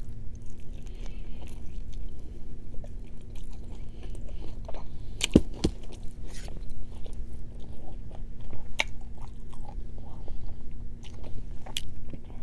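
A person biting and chewing food close to the microphone, with scattered short wet clicks and crunches; one sharper click about five seconds in.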